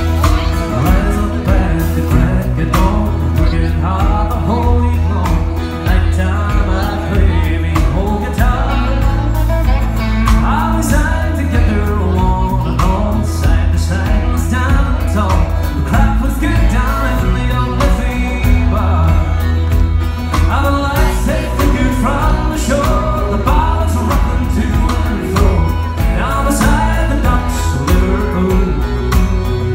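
Live country band performance: a male voice singing into a microphone over piano accordion, acoustic guitar and a steady bass line.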